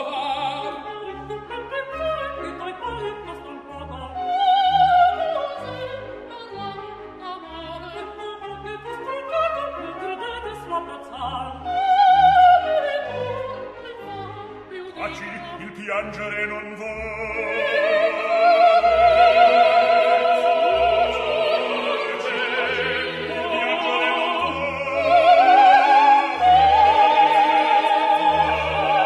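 Operatic aria in Italian: a singer holds long, high notes with a wide vibrato over an orchestra, and the held notes grow louder and longer in the second half.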